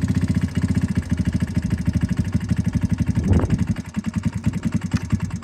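Talon GSX 150R2's small engine idling with a steady chugging pulse that sags briefly about four seconds in. The engine is running rough and stalls soon after.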